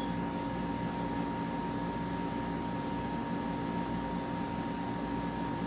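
Steady machine hum with a constant high whine over a low drone, unchanging throughout; no tool strikes or clanks stand out.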